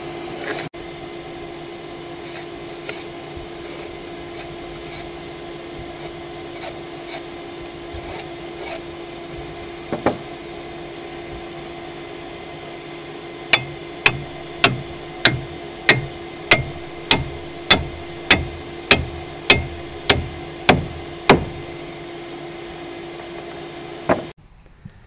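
Wooden peg hammered into a log timber: about fourteen even blows, a little more than half a second apart, starting about halfway through, with a single knock a few seconds earlier. A machine hums steadily underneath and cuts off near the end.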